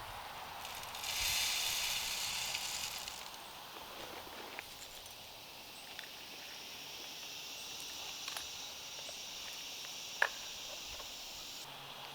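Summer outdoor ambience: a loud hiss for about two seconds near the start, then a steady high-pitched insect drone, with scattered faint clicks and one sharp click about ten seconds in.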